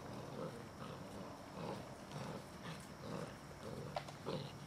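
Six-week-old Šarplaninac puppies grunting and growling as they play-fight over a toy, in short low sounds every half second or so, with a sharp click about four seconds in.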